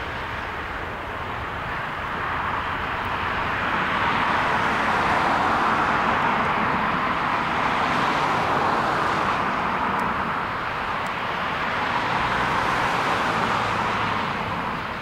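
Boeing 737 MAX 8's CFM LEAP-1B turbofan engines at takeoff thrust, heard from a distance as a rushing jet roar. It grows louder over the first few seconds as the airliner rolls and lifts off, and eases near the end.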